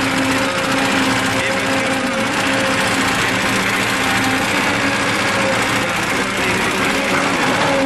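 Caterpillar excavator's diesel engine running steadily with a constant pitched hum while the bucket digs into soil.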